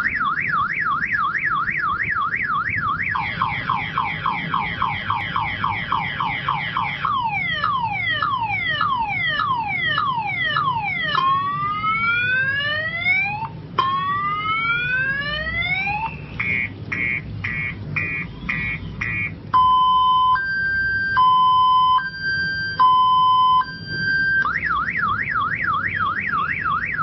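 Multi-tone electronic siren cycling through its patterns: a fast up-and-down warble, slower sweeping wails, falling then rising sweeps, a rapid pulsing beep about 16 seconds in, and a two-note hi-lo about 20 seconds in, before returning to the fast warble near the end.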